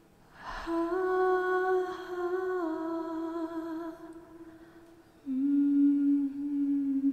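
A woman humming slow, long held notes: one note that steps slightly down and fades, a short pause, then a lower note held to the end.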